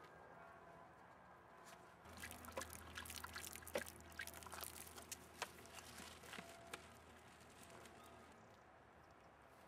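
Water poured from a plastic bottle into a dog's mouth as it drinks, with a run of small splashes, drips and clicks. It begins about two seconds in and stops about eight seconds in.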